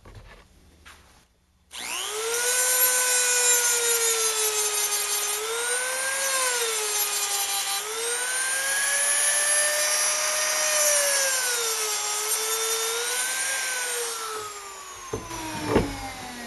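Small high-speed rotary tool grinding metal to open up a hole for clearance, starting suddenly about two seconds in, its whine dipping and rising as it is pressed into the work. Near the end it is switched off and its whine falls away as it spins down, with a couple of sharp clicks.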